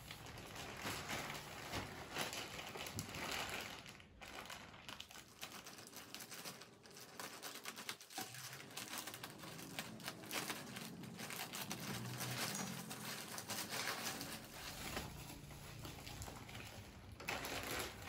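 Plastic courier mailer bag crinkling irregularly as it is handled and pulled open by hand.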